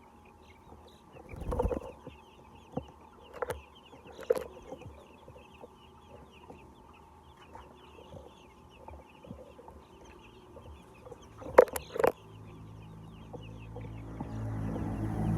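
Chickens clucking, with many short high calls throughout and several sharp knocks, the loudest a close pair about twelve seconds in. Music fades in near the end.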